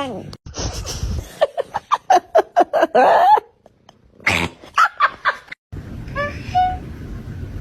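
A string of short domestic cat vocalisations, cut together from separate clips: a rapid run of short pitched calls, a second cluster of calls a little later, and faint short chirps near the end.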